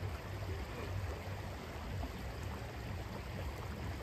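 A stream flowing steadily: an even, continuous wash of moving water.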